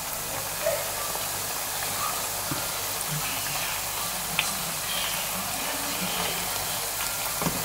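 Battered cauliflower florets frying in hot oil in a large pan, a steady sizzle, with a few light clicks of forks turning the pieces.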